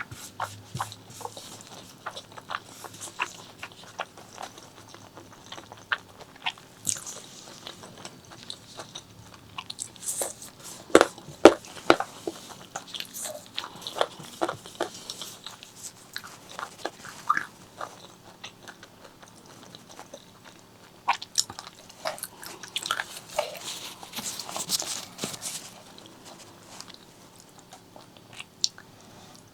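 Close-miked eating sounds of a person chewing spicy pork leg curry with white rice: irregular wet smacks and clicks, loudest near the middle.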